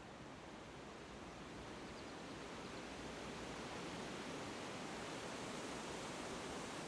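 Steady outdoor background hiss that swells slightly, with one faint, brief high chirp about two seconds in.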